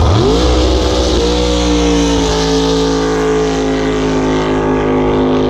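Racing jet boat engine revving up sharply from low to high revs, then held at high, steady revs as the boat runs at speed, with a small step down in pitch about two seconds in.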